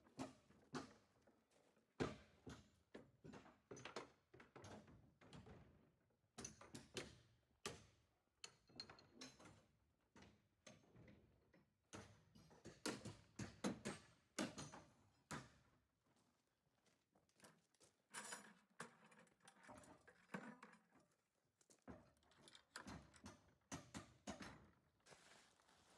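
Irregular knocks, thunks and rattles of work on plywood concrete wall forms and their steel ties, with steps on gravel.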